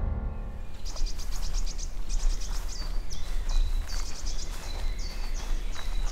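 A songbird singing: a quick run of high chirps about a second in, then a string of short high notes that each drop in pitch. Footsteps on a forest path sound faintly underneath.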